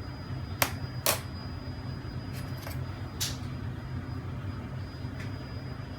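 Light clicks and taps of a utensil at a mixing bowl as black pepper is spooned in: three sharper clicks, about half a second, one second and three seconds in, and a few fainter ones, over a steady low hum.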